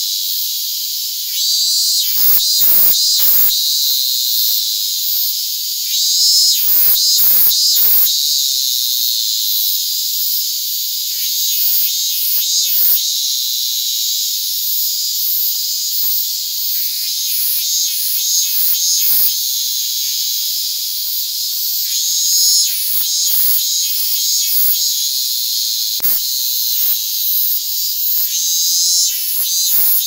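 Chorus of Japanese cicadas shrilling without a break, with clusters of short knocks now and then.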